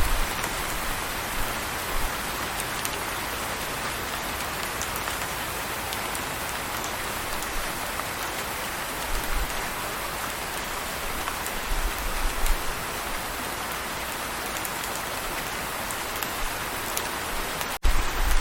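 Steady rain falling, an even hiss of drops on surfaces, with a few brief low rumbles. The sound drops out for an instant near the end.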